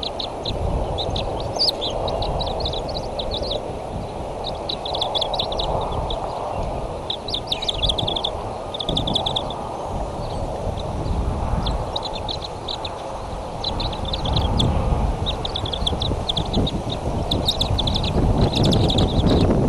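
Bald eaglets giving high, rapid chittering calls in short bursts every second or two while being fed, over a steady low rumble.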